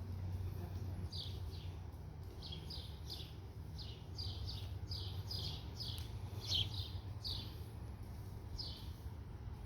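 A bird chirping: a run of short, falling high chirps, roughly two a second, starting about a second in and stopping near the end, over a steady low rumble.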